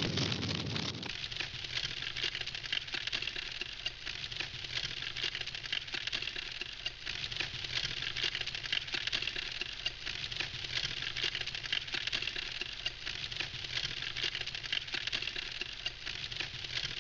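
Wood campfire crackling steadily with dense small snaps and pops. A louder low rushing noise stops about a second in.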